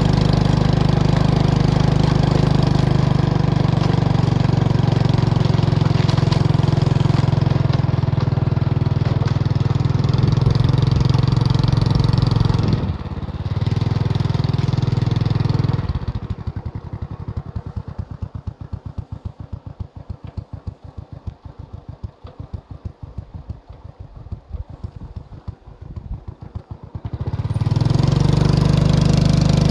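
Small motorcycle engine running steadily under way. About halfway through it drops to a quieter, evenly pulsing beat for around ten seconds, then picks up loud and steady again near the end.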